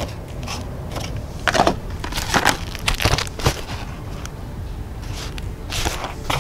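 Plastic blister packaging and a card box handled by hand: irregular crinkling and crackling with a few sharper clicks, busiest from about one and a half to three and a half seconds in.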